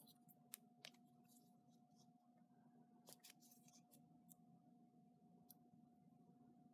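Near silence: a few faint ticks and soft rustles as fingernails pick and peel the release backing off a peel-and-stick foam-backed paper die-cut, over a faint steady hum.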